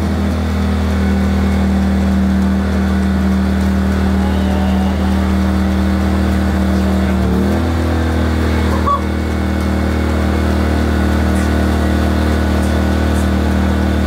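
Small pull-start portable generator engine running steadily. A little past halfway its pitch drops slightly, and a short click comes about nine seconds in.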